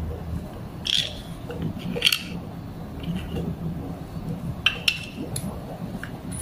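Gloved hands fitting a plastic cover and its small screws onto a rotary vane vacuum pump, making a few sharp clicks and clinks. Two of them come close together about three-quarters of the way in, over a steady low hum.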